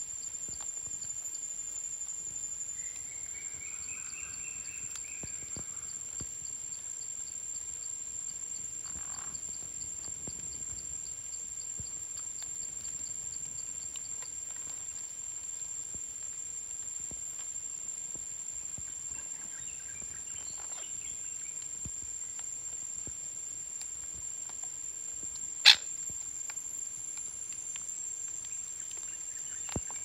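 Parrots giving a few short, scattered calls over a steady high-pitched whine and a faint rapid ticking. A single sharp click stands out about 26 seconds in.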